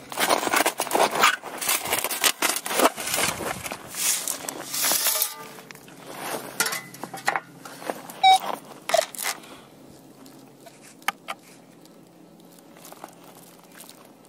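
Perforated metal sand scoop digging into beach gravel and pebbles: dense scraping and crunching for about the first five seconds, then scattered clicks of stones, growing quieter toward the end.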